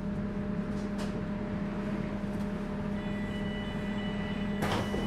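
A stationary three-phase AC (Drehstrom) AEG/MAN/Siemens DT1 U-Bahn train humming steadily from its onboard equipment, with a faint high whine joining about three seconds in. A short, sharp hiss comes near the end.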